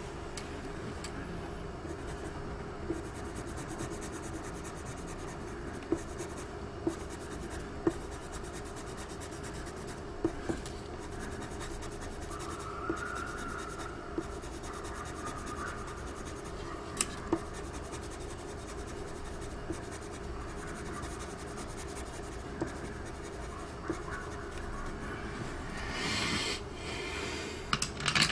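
Coloured pencil shading on drawing paper: a steady scratchy rubbing, with scattered sharp ticks as the pencil tip strikes the paper. A steady low hum runs underneath, and there is a louder rustle near the end.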